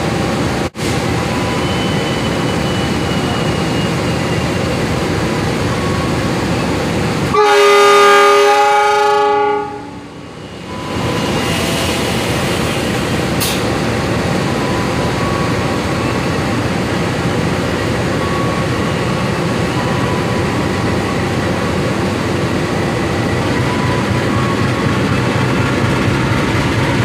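GE CC206 diesel-electric locomotive sounding its horn in one blast of about two seconds, several seconds in, over the steady running of its diesel engine as it pulls a long-distance passenger train out of the platform.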